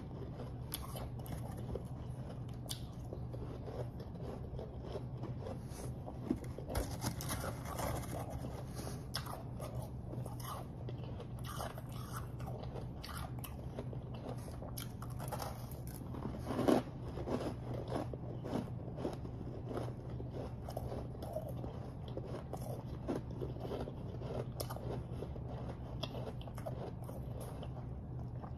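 Close-miked biting and chewing of refrozen powdery snow ice: dense, irregular crunches throughout, the loudest just past halfway, over a steady low hum.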